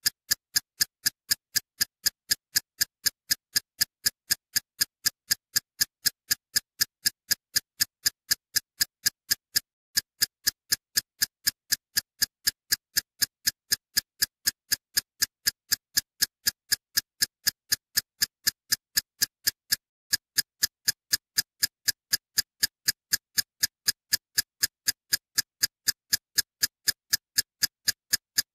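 Steady, regular ticking: sharp clicks at about three a second with silence between them, pausing briefly twice.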